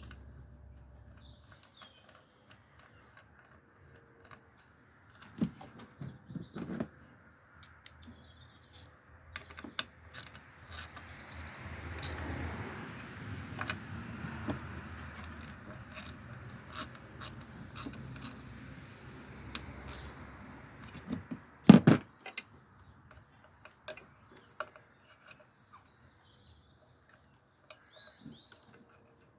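Hand tools and metal parts clicking and knocking while work is done on a car's fuel lines, with a rising and falling rush of noise in the middle and a sharp double knock about two-thirds of the way through. Faint bird chirps.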